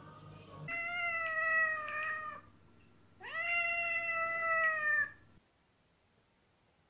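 Domestic cat meowing: two long, drawn-out meows about a second apart, the second sliding up in pitch at its start.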